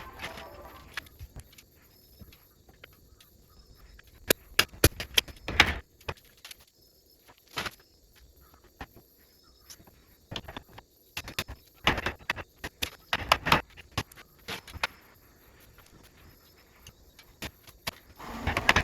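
Irregular knocks and clicks of wooden workpieces being handled in the workshop, coming in a few short clusters with quiet gaps between.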